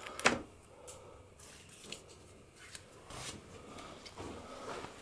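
A single sharp knock just after the start, then soft scattered taps and rustles of someone moving about on a carpeted floor.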